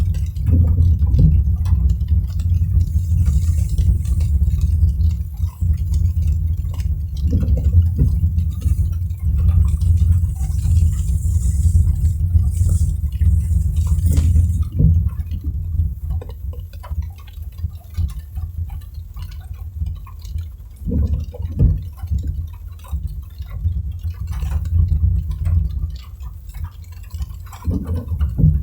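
Car driving in the rain: a steady low rumble from the moving car, with scattered light taps of raindrops and a faint hiss.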